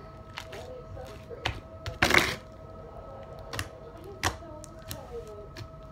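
Homemade slime being pulled out of a plastic tub and squeezed in the hands: scattered sticky clicks and pops, with one louder, longer squelching rush about two seconds in.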